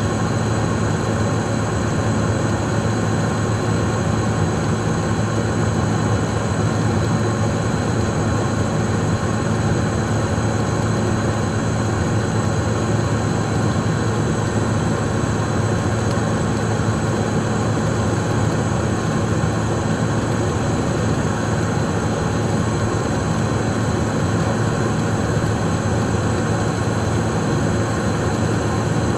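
Steady cockpit noise of a Cessna Citation Mustang in flight: a constant low hum and rush of airflow from its twin Pratt & Whitney PW615F turbofans, with a few steady high whining tones on top.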